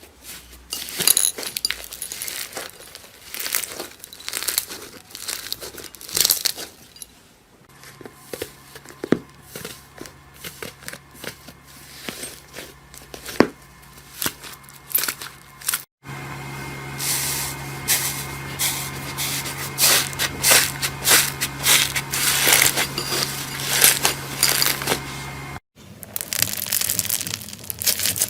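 Hands squishing and pressing slime, giving dense crackling and popping clicks. The sound changes abruptly about 8, 16 and 26 seconds in as separate clips begin, with a low steady hum under the middle stretch.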